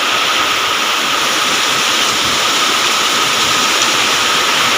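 Heavy rain pouring down in a storm, a loud steady hiss.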